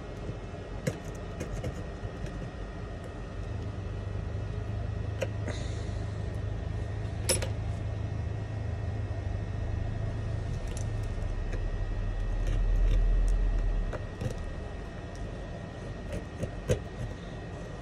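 Scattered small clicks and scrapes of shattered iPhone 11 back glass being chipped off the frame with a hand tool. Under them a low rumble builds and swells loudest about twelve seconds in, then fades.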